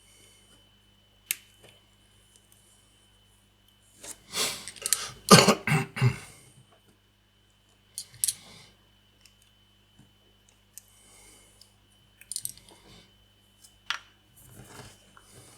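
Small plastic model parts and tools handled on a work table: scattered sharp clicks and taps, with a louder cluster of knocks and rustling about four seconds in.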